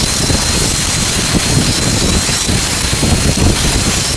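Handheld angle grinder running steadily with a thin high whine over a loud hiss, its disc grinding the electric iron's soleplate to remove the factory punch marks around the heating-element groove.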